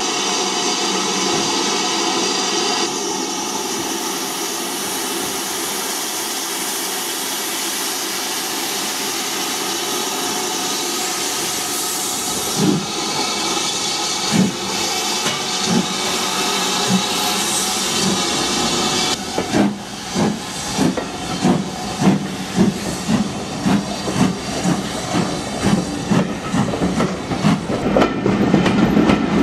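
Southern Railway U class 2-6-0 steam locomotive No. 31806 starting away. Steam hisses steadily from its open cylinder drain cocks, with a few slow exhaust beats coming through from about halfway. About two-thirds of the way in the hiss cuts off and regular chuffs follow, about three beats every two seconds.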